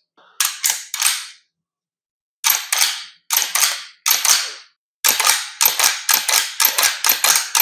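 Rossi lever-action .22 LR rifle being cycled by hand: sharp metallic clacks of the lever, bolt and hammer. A few clacks near the start, a pause, then pairs of clacks, and a quick string of about three a second near the end.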